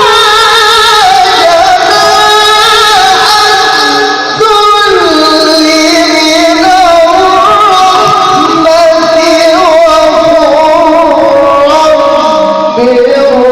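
A male Quran reciter's voice in melodic tilawah, holding long, ornamented notes that waver and slide, stepping down in pitch about four and a half seconds in and again near the end.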